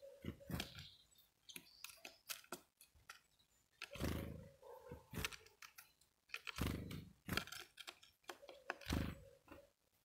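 Irregular close-up taps and knocks from a great tit feeding at sunflower seeds on a wooden feeder board, with three heavier thumps at about four, six and a half and nine seconds in.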